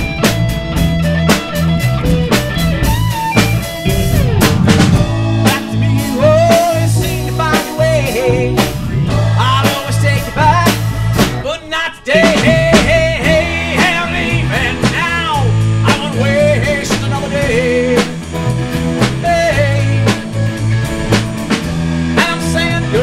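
A live rock band playing: drum kit, electric bass, electric guitars and keyboard together, with a steady drum beat. The music drops out briefly about halfway through, then the band comes back in.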